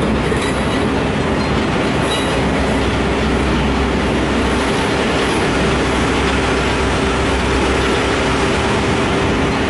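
CN freight train cars rolling past at a crossing: a steady rumble and clatter of steel wheels on the rails, with a thin steady whine over it.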